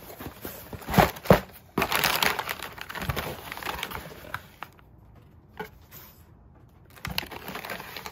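Plastic wrappers of individually packed dog chews crinkling and rustling as hands rummage through a cardboard box of them, with a couple of sharp knocks about a second in and a quieter spell midway.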